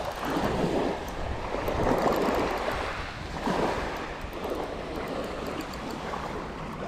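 Small waves washing onto a shingle beach in several swelling surges.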